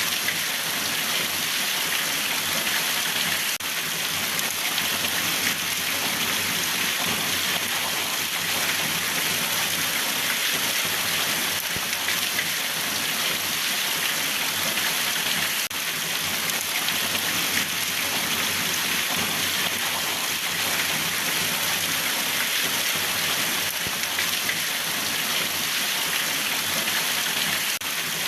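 Steady, even rain falling and pattering on surfaces.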